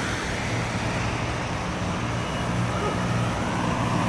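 Steady street noise in the rain: an even hiss of rain and traffic on wet road, with a low engine hum underneath.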